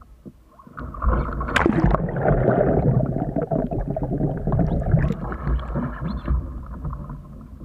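Water splashing and gurgling as an open canoe capsizes and rolls back upright, starting about a second in. The microphone on the boat goes under the surface, muffling the bubbling for a few seconds before it fades near the end.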